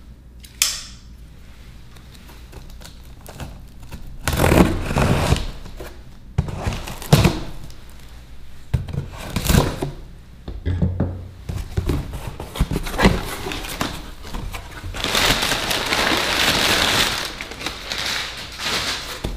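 A cardboard shipping box being opened by hand: a series of knocks and scrapes on the taped cardboard, then a longer rustling scrape of cardboard about three-quarters of the way through as the flaps are pulled open.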